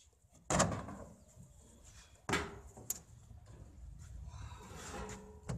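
Handling noise from a steel-cased arc welding transformer: two sharp knocks that ring briefly, about two seconds apart, then a small click and a softer rustle near the end.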